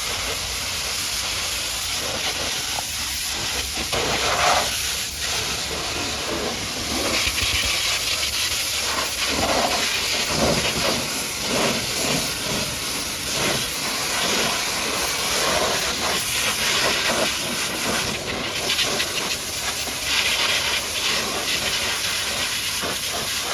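High-pressure washer jet spraying water against a muddy truck: a loud, steady hiss that swells and shifts in tone as the spray moves over different surfaces.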